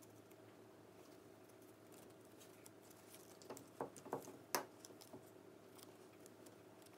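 Near silence with a faint steady hum, broken between about three and five seconds in by a few small clicks and taps from hands working a glue stick and paper cut-outs on a wooden table.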